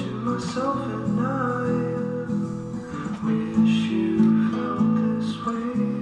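Background music: a strummed acoustic guitar song, with chords changing every second or so.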